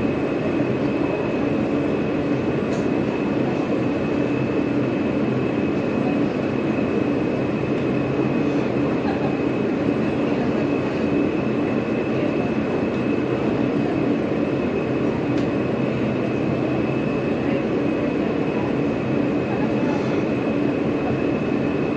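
Alstom R160A subway car heard from inside while the train runs at steady speed: a constant rolling noise with a steady high-pitched whine, no change in pace throughout.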